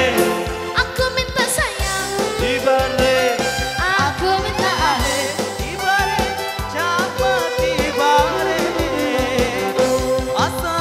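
Background music: a pop song with a steady beat and a sliding melodic line.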